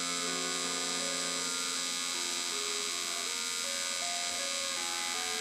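TIG welding arc buzzing steadily as a bead is laid on a pipe joint, with a faint background music melody.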